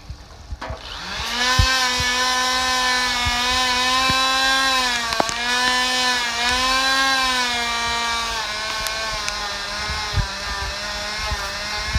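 Small handheld electric chainsaw running as it cuts into a bougainvillea stump, starting about a second in with a steady whine; the pitch sags briefly a couple of times as the chain bites into the wood.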